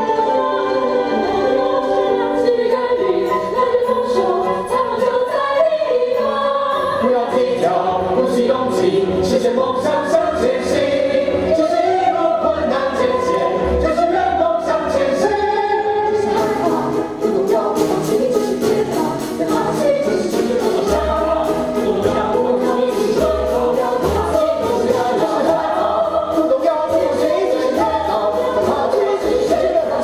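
Stage-musical cast singing together in Chinese over instrumental accompaniment, with a few low drum hits in the second half.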